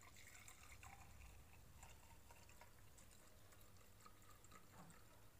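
Faint trickle of oil poured from a plastic bottle into a drinking glass.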